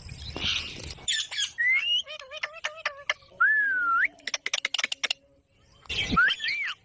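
Indian ringneck parakeet whistling and squawking: short chirps and gliding whistles, one longer whistle that rises at the end, then a quick run of clicks. After a short pause comes a loud squawk near the end.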